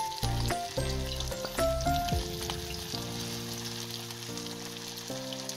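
Masala-coated seer fish steaks sizzling as they shallow-fry in oil on a dosa tawa, a steady crackling hiss. Background music of held notes plays over it.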